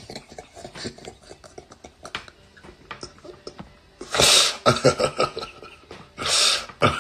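A man laughing. For the first few seconds the laughter is quiet and held in, then loud, breathy bursts of laughter come about four seconds in and again near the end.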